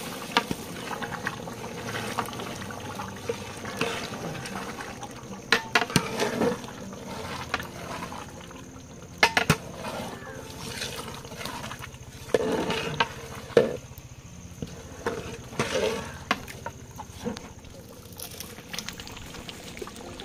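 A thick curry bubbling in a pot as prawns are added, with a few sharp knocks of a utensil against the pot.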